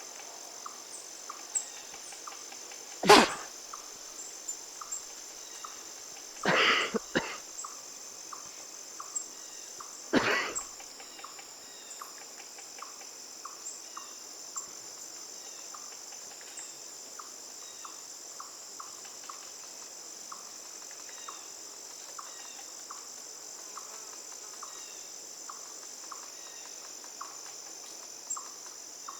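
A person sneezing: three sudden loud blasts a few seconds apart, the first the loudest. Crickets chirp steadily throughout.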